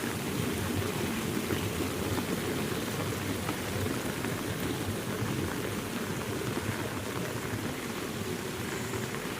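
Heavy rain falling steadily, an even dense patter with no single louder event.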